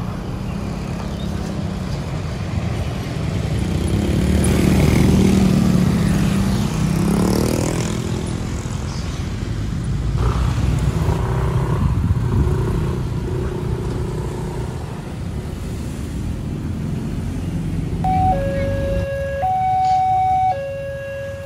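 Road traffic crossing a railway level crossing: a large coach's diesel engine and motorcycles passing, with an engine revving up about seven seconds in. About eighteen seconds in, the level crossing's electronic warning alarm starts, two tones alternating low and high about once a second, signalling that a train is approaching and the barriers are closing.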